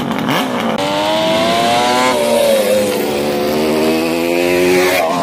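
Two-stroke three-cylinder engine of a Kawasaki triple-powered KV75 minibike (the KV250) revving as the bike accelerates. Its pitch rises, dips briefly about two seconds in, then climbs again.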